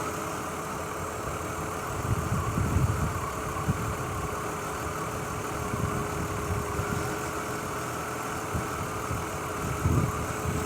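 Mazda Tribute's 3.0-litre V6 idling roughly with a misfire, its low rumble surging unevenly about two to four seconds in and again near the end, with a faint steady whine underneath. The owner traces the misfire to ignition coils arcing in oil from leaking valve cover gaskets.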